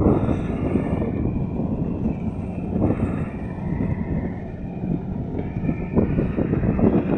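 Diesel engine of farm machinery in a rice field running steadily, with wind buffeting the microphone; the sound eases a little around the middle and gets louder again near the end.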